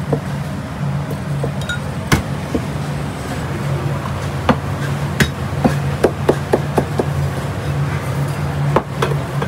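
Sharp knocks and clinks, scattered at first, then a quick run of about eight strikes in the middle, over a steady low hum.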